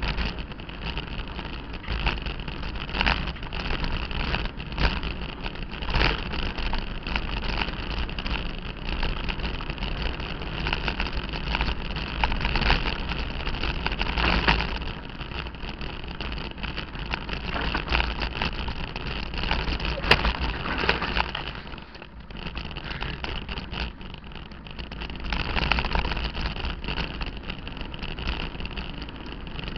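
Mountain bike ridden fast downhill over a rough dirt trail: wind buffeting the camera's microphone with a steady rumble, and the frame and gear rattling and knocking over roots and bumps. It eases for a few seconds about two-thirds of the way through, then picks up again.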